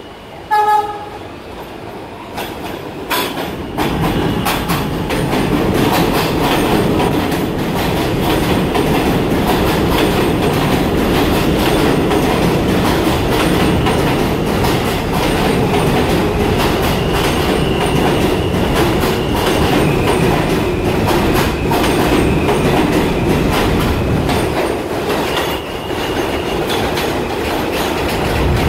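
New York City subway train giving one short horn blast, then running through the station with a steady loud rumble and rapid clicking of wheels over rail joints. A thin high wheel squeal comes in twice, once mid-way and once near the end.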